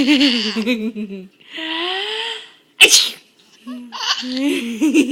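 A woman sneezing: one sharp sneeze a little under three seconds in, with drawn-out voiced sounds before and after it.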